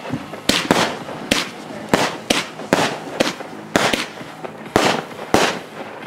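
Aerial fireworks going off: a rapid, irregular string of sharp bangs, about two a second, that stops about five and a half seconds in.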